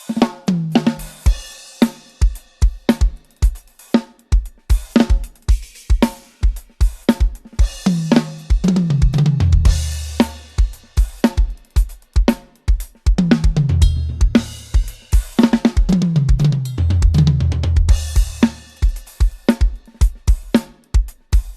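Budget drum kit played in a steady groove of kick, snare, hi-hat and cymbal hits, close-miked on separate tracks and mixed. It breaks several times into tom fills that step down in pitch.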